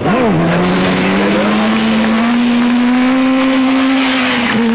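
Sport motorcycle engine running hard during a wheelie. Its pitch dips briefly at the start, then climbs slowly and holds steady, wavering slightly near the end.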